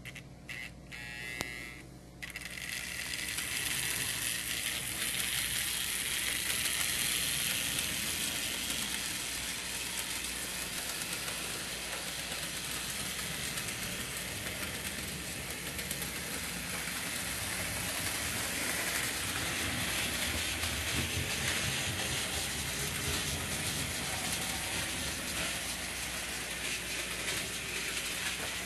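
Märklin HO Class 23 model steam locomotive running, its electric motor and gears giving a steady mechanical whir as it rolls along the metal track. The whirring starts about two seconds in, after a few light clicks, and then holds steady.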